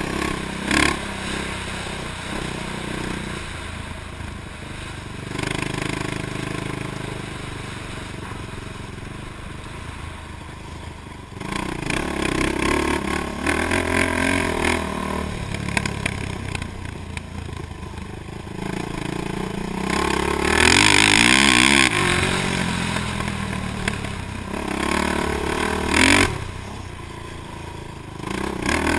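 Honda TRX450R quad's single-cylinder four-stroke engine revving up and down as the throttle is opened and closed around the track. A loud rushing noise comes in about twenty seconds in, with sharp knocks about a second in and again near the end.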